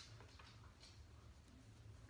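Near silence: low room hum with a few faint, soft swishes of an eyeshadow brush being swept over the eyelid.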